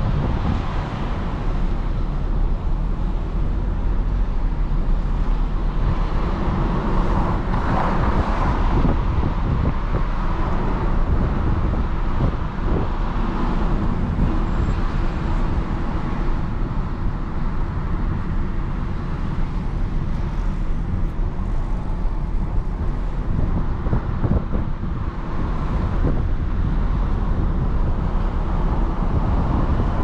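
Steady engine and tyre-on-road noise inside the cabin of an Audi A3 30 TFSI driving at road speed. The rushing noise swells briefly about eight seconds in.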